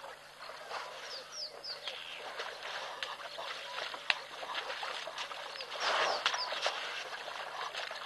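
Birds calling with quick falling chirps over the wet sloshing and clicking of elephants working mud in a wallow, with a brief louder splash just before six seconds in.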